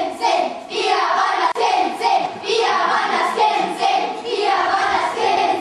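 A group of children singing a song together, in phrases with held notes.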